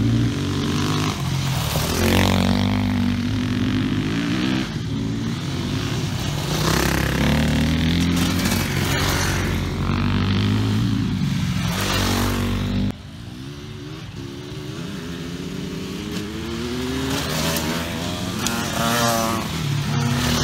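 Enduro dirt bikes riding past on a gravel track, their engines repeatedly revving up and easing off. The sound drops off suddenly about two-thirds of the way through, then another bike's engine grows louder and rises in pitch as it approaches.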